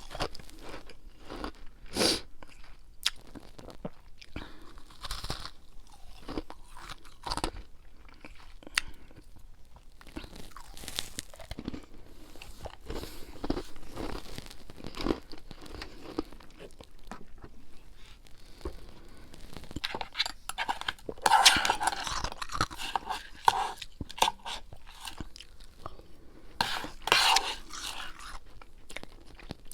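Close-up chewing and crunching of powdery freezer frost, irregular crisp crunches with denser, louder bursts about two-thirds of the way in and again near the end.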